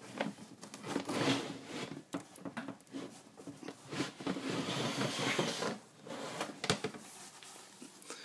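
Rustling and scraping of a plastic snake tub and its newspaper lining being handled in the rack, with scattered clicks and a sharp knock about six and a half seconds in.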